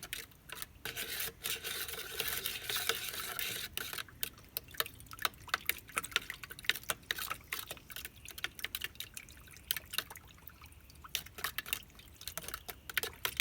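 Hummingbird nectar mix being stirred into water in a mixing tub, the liquid swishing for the first few seconds, with many quick, irregular clicks of the stirring utensil against the tub.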